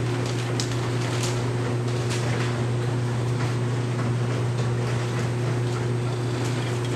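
A steady low mechanical hum with a fainter steady tone above it, and a few faint ticks.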